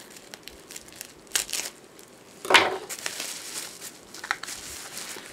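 Packaging crinkling and rustling as it is opened by hand, in irregular bursts, with one louder crunch about two and a half seconds in.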